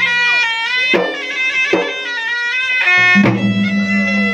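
Traditional Makassar gendang music: a reed pipe plays a sustained, ornamented melody over gendang drum strokes, with three sharp drum hits and a steady low drone that enters about three seconds in.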